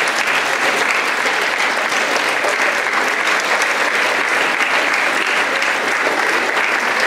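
A hall full of people applauding, steady sustained clapping.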